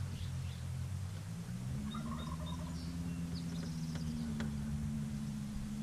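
Boat motor humming steadily, most likely the bass boat's electric trolling motor, stepping up in pitch about two seconds in as its speed is raised. Faint bird chirps sound above it.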